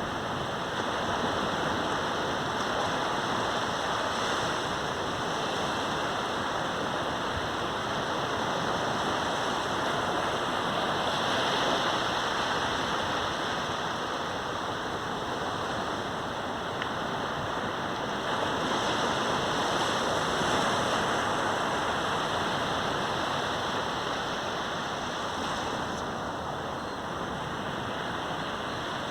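Sea surf on a beach: a continuous wash of waves breaking and running in, swelling a little louder about every eight seconds.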